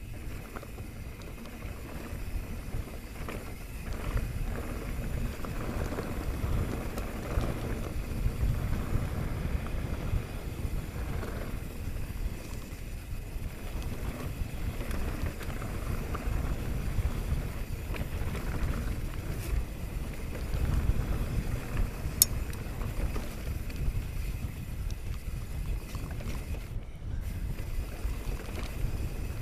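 Mountain bike descending a bone-dry dirt singletrack: wind buffeting the rider-mounted microphone over the rumble of the tyres on the trail, with scattered rattles from the bike and one sharp click about two-thirds of the way through.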